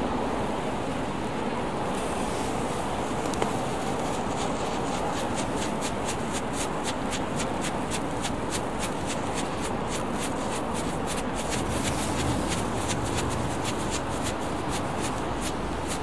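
Small ground firework crackling: quick, irregular snaps start about four seconds in and grow thicker as it throws sparks. Under it runs a steady rush of wind and water noise.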